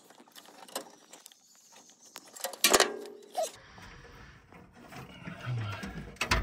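Scattered clicks and knocks of hand tools and metal parts in an old truck's engine bay, the loudest a short clatter about two and a half seconds in.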